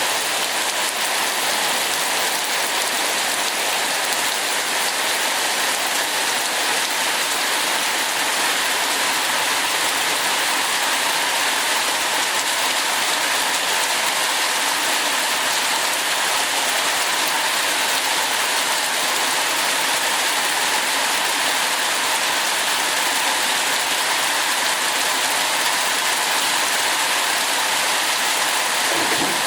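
Heavy rain falling steadily, an even dense hiss of drops hitting surfaces with no let-up.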